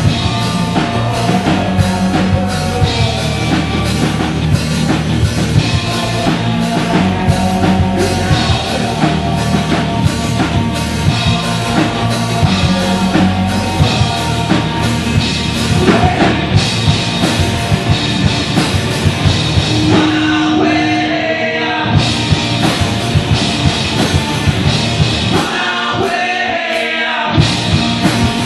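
Indie rock band playing live: electric guitars, bass and a drum kit keeping a steady beat. Near the end the drums and bass drop out for about a second and a half.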